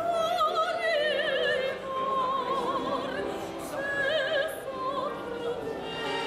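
A female operatic voice, a soprano, singing long held notes with wide vibrato, accompanied by violin and piano.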